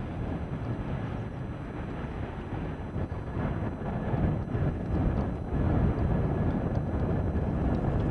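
RAF CH-47 Chinook tandem-rotor helicopter in flight: the rapid beat of its two rotors with its engines running. It grows louder about four seconds in.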